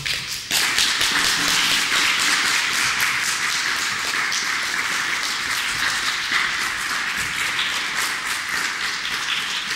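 Audience applauding: many hands clapping densely, building up about half a second in and then holding steady.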